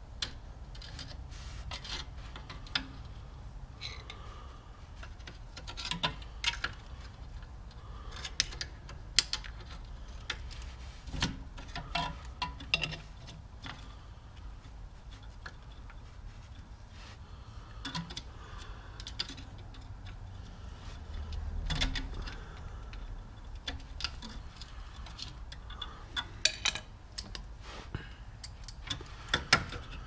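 Irregular metallic clicks and taps, some in quick clusters, as a hook pick and needle-nose pliers work the parking brake cable end and lever at a car's rear brake.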